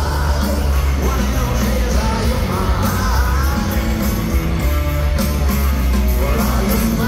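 Live rock band playing loudly in an arena, heard from among the crowd: heavy bass and guitar with drums, and singing over the top.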